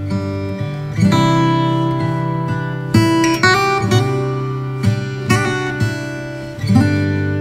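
Background music: acoustic guitar strumming chords, with a new chord struck every second or two.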